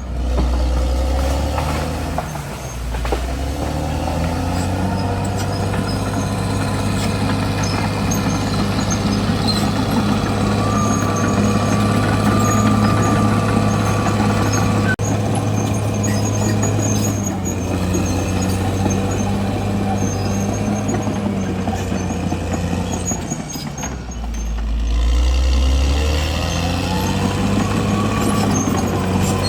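Caterpillar D6R XL bulldozer's diesel engine running under load, its revs sagging and picking back up twice. A thin whine is heard for a few seconds in the middle.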